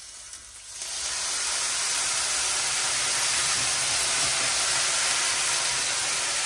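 Warm water poured into a very hot pot of toasted rice, hissing steadily as it hits the hot pot and starts boiling at once. The hiss sets in about a second in.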